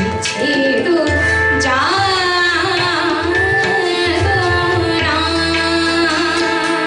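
Bengali tappa sung by a woman's voice in quick, ornamented turns that enter about two seconds in. A harmonium holds steady notes throughout and a tabla plays low strokes beneath.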